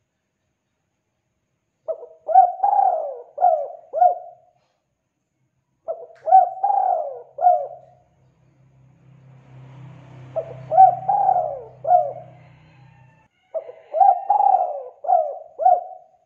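Spotted dove cooing: four phrases of four or five quick coos each, one about every four seconds. A faint low rumble sits under the third phrase.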